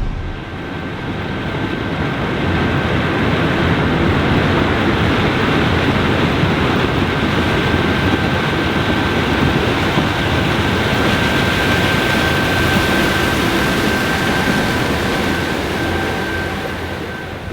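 Challenger 560C combine running under harvest load, heard as a steady rushing roar with a thin high whine held over it.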